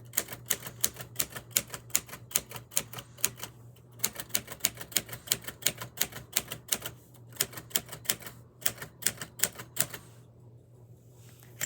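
Typewriter keys striking in quick runs, several strokes a second, as a line is typed in capitals with shift lock engaged. There is a short pause about four seconds in, and the typing stops about ten seconds in.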